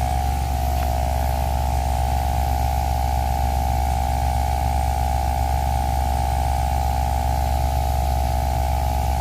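Vehicle engine running steadily at a constant speed, with an even low hum and a steady higher drone.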